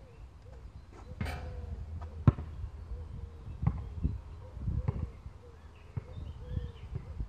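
A basketball shot on an outdoor court: about a second in a brief clattering hit at the hoop, then a single hard bounce of the ball on the court, the loudest sound, followed by a scatter of lighter bounces and running footsteps.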